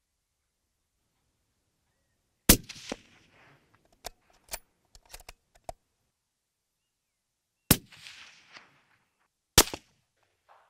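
Three shots from a scoped hunting rifle fitted with a sound moderator, the first about two and a half seconds in and the last two close together near the end. Lighter clicks and knocks come between the first two shots.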